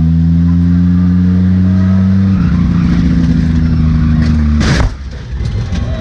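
Demolition derby car engines running loud and steady, their pitch shifting slightly a little past halfway. Near the end comes a short, loud burst of noise, after which the engine drone drops away.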